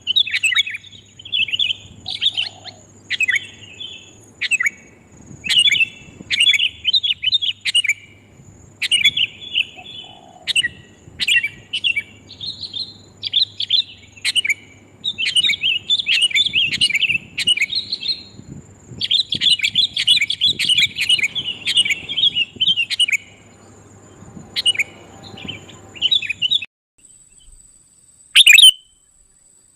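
Sooty-headed bulbuls calling loud and clear in quick, chattering bursts, one phrase after another, played as a bird-lure recording. The calls stop about three seconds before the end, leaving one loud short call near the end.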